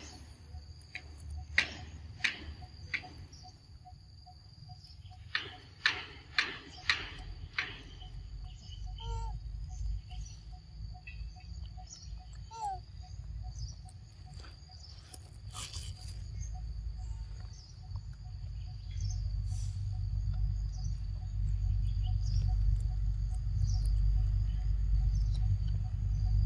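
A macaque biting into the skin of a green mango and chewing: a run of sharp crunching bites in the first three seconds and another about six seconds in. A steady high insect buzz carries on underneath, and a low rumble builds in the second half.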